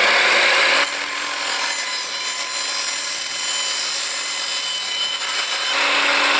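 Evolution R255SMS 10-inch sliding mitre saw with a 2000 W motor running at full speed, its blade cutting through a 1.5-inch ABS plastic pipe from about a second in until near the end, when the blade runs free again.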